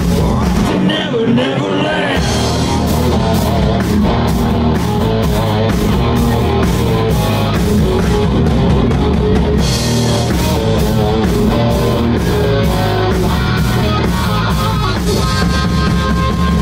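Live rock band playing loudly: distorted electric guitars and a drum kit with a steady cymbal beat, and a male lead singer singing through the PA.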